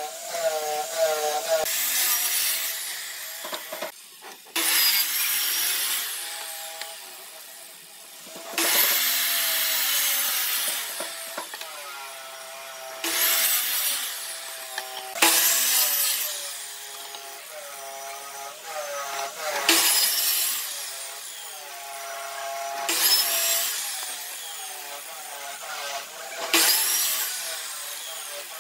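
Ryobi sliding compound miter saw cutting pine boards, a series of about eight short cuts, each lasting a second or two, a few seconds apart.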